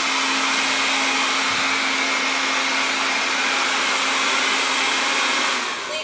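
Wyze robot vacuum running its suction fan on the strong setting: a steady whirring rush with a low hum. It winds down near the end as the vacuum is stopped.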